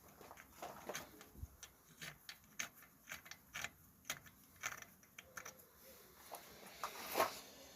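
Irregular light metallic clicks and ticks, a few a second, from hand tools being worked in a freshly tapped thread hole in the engine's aluminium timing case. A louder scraping click comes about seven seconds in.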